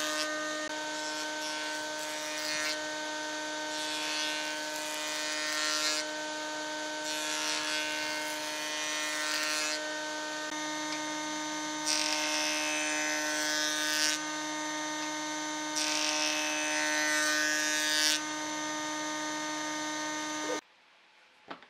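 Jointer's cutterhead running with a steady whine, while a curved wooden blank is pushed across it in several passes, each adding a louder hissing cut lasting a second or two. The machine sound stops abruptly near the end.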